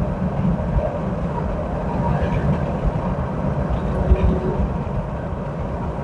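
Steady road noise inside a moving car's cabin: a low rumble of tyres and engine as the car drives along.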